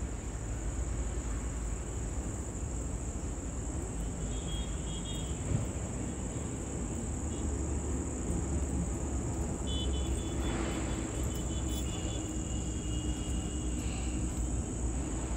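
Steady outdoor evening background: a low rumble under a continuous high-pitched cricket trill, with a few faint short high tones about four seconds in and again around ten seconds.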